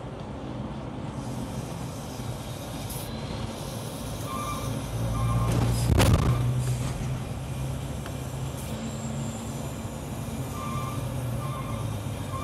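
Heavy truck's diesel engine running at low speed, with a reversing alarm beeping in short runs of three or four beeps. There is a brief louder swell of noise about halfway through.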